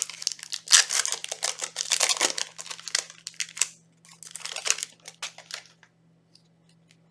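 Foil wrapper of a trading-card booster pack being torn open and crinkled: dense crackling for the first few seconds, then a shorter burst of crinkling about four seconds in.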